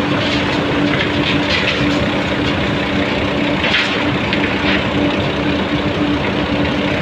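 Industrial mill machinery running: a steady, loud mechanical hum and drone with a pulsing tone, with a few brief hissing swells rising over it.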